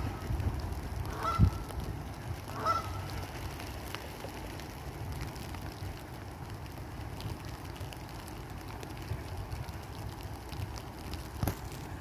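Two short calls from waterbirds on a pond in the first three seconds, over a steady low rumble.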